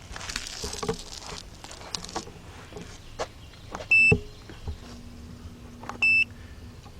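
Two short high-pitched electronic beeps about two seconds apart from a handheld digital battery tester during a retest, with light clicks of handling before them.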